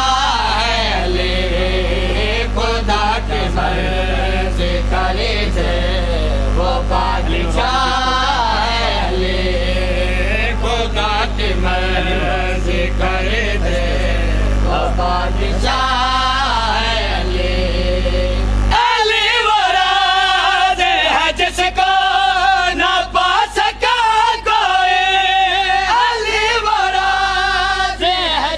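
Men chanting a noha, a mournful devotional lament, a lead voice amplified through a microphone and loudspeaker. A low steady hum under the chant cuts out about two-thirds of the way through, and the singing sounds sharper and louder after it.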